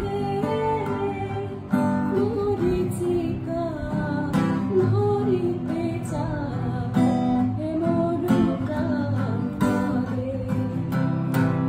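A woman singing a slow melody to strummed acoustic guitar.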